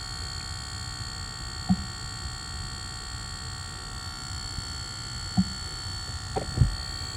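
Steady electronic buzz in a Lucid electric car, a whine made of several constant high tones, still there after a reset. Three short soft knocks come through it.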